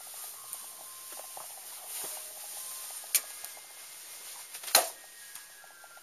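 Light pattering and scratching of rabbit paws on a tile floor, with two sharp clicks, the second louder, about three and almost five seconds in.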